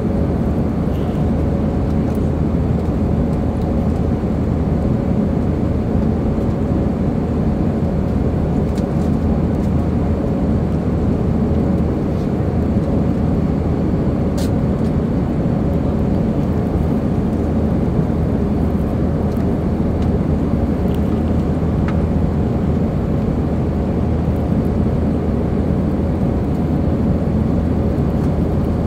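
Airbus A320 cabin noise in the climb after takeoff: the steady sound of the engines and rushing air heard from inside the cabin at a window seat behind the wing, with a faint steady hum running through it.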